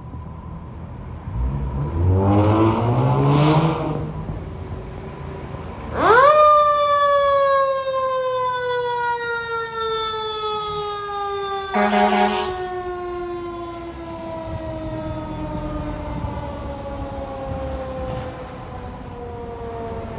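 Fire engine responding: its engine revs up loudly about two seconds in. Then a mechanical siren whines up sharply and winds down slowly and steadily in pitch. A short horn blast cuts in about halfway through.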